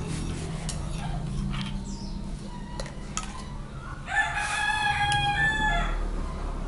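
A rooster crows once, about four seconds in, a single call of under two seconds, over a steady low hum.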